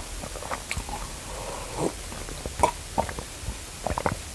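A man drinking from a glass in gulps: irregular swallowing sounds with small clicks.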